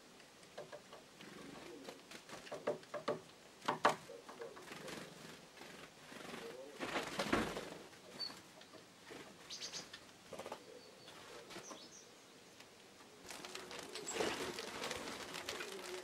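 Small forest birds at a winter lard feeder giving short high chirps and whistles, with a cluster of sharp taps a few seconds in and a brief rush of noise around the middle.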